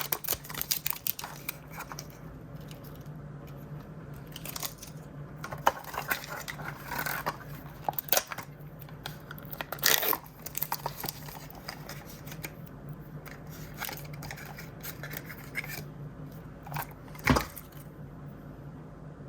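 Blind-bag toy packaging being handled and torn open: irregular crinkling and rustling of plastic, with sharp clicks and snaps, the loudest about 6, 10 and 17 seconds in. A low steady hum runs underneath.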